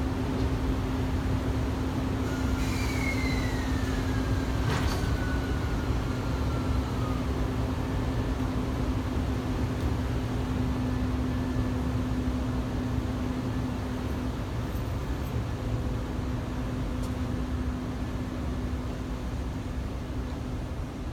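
14-series passenger coaches hauled by an EF65 electric locomotive pulling slowly out of a station: a steady low rolling rumble with a constant hum. A few seconds in, a high squeal slides down in pitch over about four seconds, with a single sharp clack in the middle of it.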